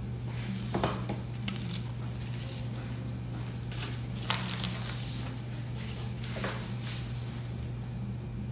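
Quiet scratches, taps and rustles of a pen and a paper note card as a short note is written, with one brief louder rustle a little past the middle, over a steady low hum.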